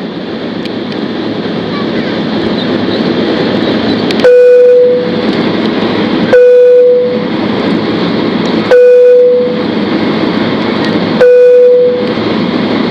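Steady jet engine and airframe noise inside a Boeing 767-300's cabin as it taxis. Four loud single-pitched beeps, each under a second long and starting with a click, cut in about every two and a half seconds and are the loudest sound.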